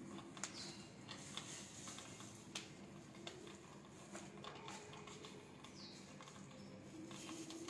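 Faint scattered clicks and taps from hands handling plastic gaming-chair parts during assembly. Twice there is also a faint short falling high chirp.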